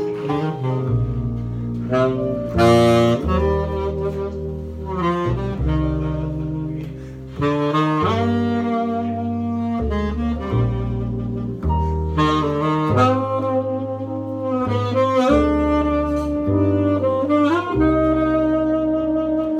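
Upright double bass playing a slow tune: held low notes change every second or two under a sustained, singing melody line.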